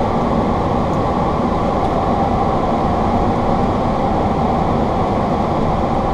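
Steady flight-deck noise of a Boeing 737-800 descending on approach: an even rush of airflow over the cockpit with the hum of its CFM56-7B engines, unchanging throughout.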